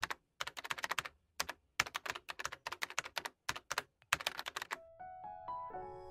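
Computer keyboard typing: fast runs of clicks in quick bursts with short gaps. It stops near the end, and a short run of musical notes rises step by step into music.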